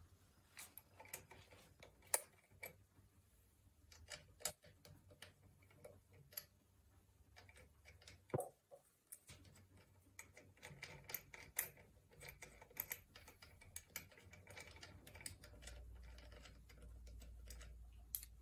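Faint, irregular clicks and taps of small metal parts and tools being handled at the rear wheel of a Kidvelo Rookie 14 kids' bike while its pedal kit is fitted, with a sharper knock about two seconds in and another about eight seconds in.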